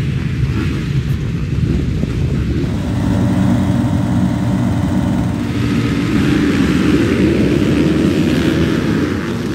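Motocross bike engines running on the track, growing louder about three seconds in.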